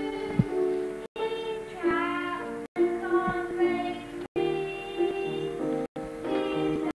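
Children singing a song with musical accompaniment, the notes held and sliding. The sound cuts out to silence for a split second about every second and a half.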